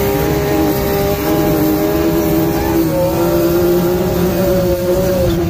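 Turbocharged Can-Am side-by-side's engine running steadily under throttle, heard from inside the open cabin; its note dips briefly about three seconds in, then holds steady again.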